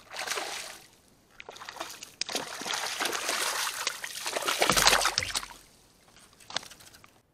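A hooked bass splashing and thrashing at the water's surface, in a short burst at the start and then a longer stretch of splashing that peaks about five seconds in, as the fish is pulled out of the water.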